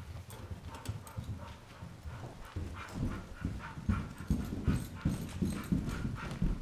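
Footsteps going down carpeted stairs, about two steps a second and louder from about halfway through, with a dog breathing hard.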